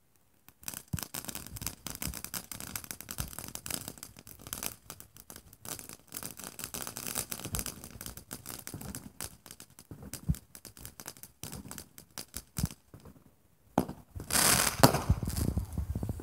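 Ground fountain firework spraying sparks with a dense, fast crackle that starts about half a second in. It breaks off briefly, then comes back louder near the end.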